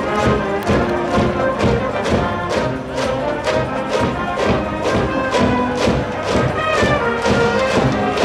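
Music with a steady drum beat, about two to three beats a second, under held band notes.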